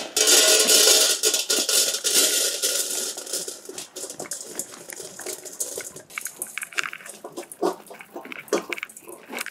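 Dry dog kibble poured from a bag into a metal dog bowl: a dense rattle of pellets hitting the metal for about the first three seconds, thinning to scattered clicks.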